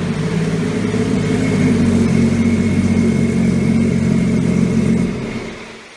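Engine running steadily at a constant pitch, fading out about five seconds in.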